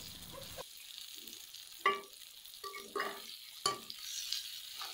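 Brinjal pieces frying in sesame oil, a faint steady sizzle, while a perforated metal spatula turns them, knocking and scraping against the metal pan several times with short ringing clinks.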